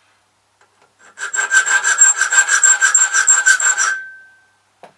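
Hand file cutting the bitting into a key blank: about three seconds of quick back-and-forth strokes with a high metallic ring, which hangs on briefly after the filing stops.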